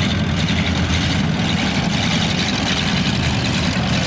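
Demolition derby car engines running steadily, a loud, unbroken low engine drone.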